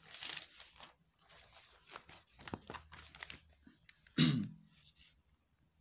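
A sheet of paper being handled and laid flat on a desk: rustling at first, then scattered light taps and scrapes. A brief vocal sound about four seconds in is the loudest moment.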